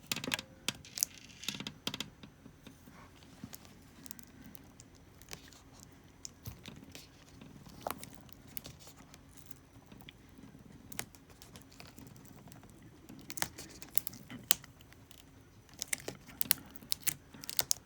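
Irregular small clicks and crackles as hands handle a laptop's screen panel and peel adhesive tape back from its display cable connector. The clicks come thicker near the end.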